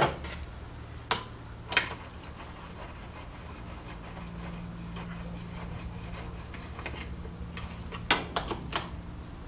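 Hand ratchet and socket tightening the tail-housing bolts on a Ford C4 three-speed automatic transmission case: a few sharp metallic clicks, with a quick cluster of them near the end.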